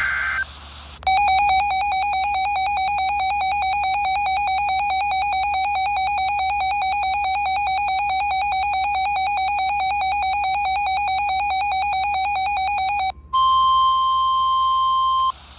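Weather-alert radio sounding its alarm: a loud, buzzy electronic tone pulsing rapidly for about twelve seconds. After a brief gap comes a pure steady tone, the NOAA Weather Radio 1050 Hz warning alarm tone, for about two seconds. Together they signal that a new warning is about to be broadcast.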